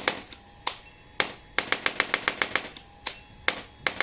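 750 N chiropractic spine adjusting gun firing its impulse head: sharp single clicks, and twice a quick run of clicks at about ten a second.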